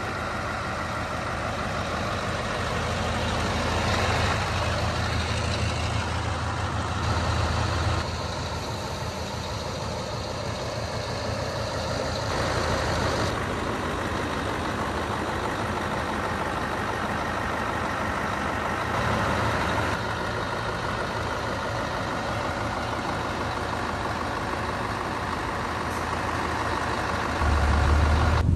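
Scania R620's 16-litre V8 diesel engine running steadily with the truck standing still. Near the end a louder, deeper rumble comes in.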